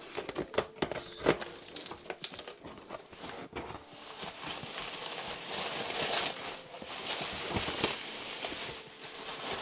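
Plastic bubble wrap crinkling and rustling as hands pull it back inside a cardboard box. There are sharp crackles and taps in the first few seconds, then steadier crinkling through the middle.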